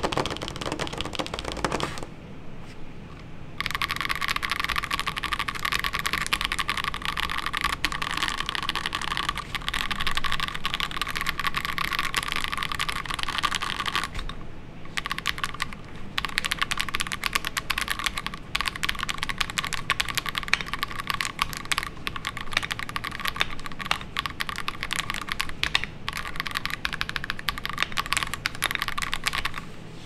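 Fast, continuous typing on an Akko ACR Pro 75 gasket-mount mechanical keyboard fitted with Akko CS Crystal linear switches and PBT double-shot ASA-profile keycaps: a dense run of soft keystroke clacks. It pauses briefly about two seconds in and again around the middle.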